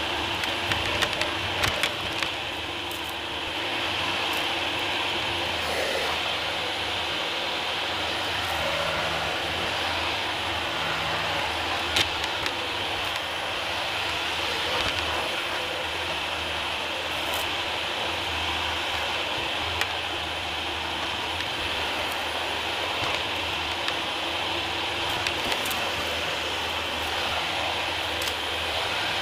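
Dyson DC40 upright vacuum cleaner running steadily with a whining motor, picking up grit and debris from hard floors with scattered sharp crackling clicks.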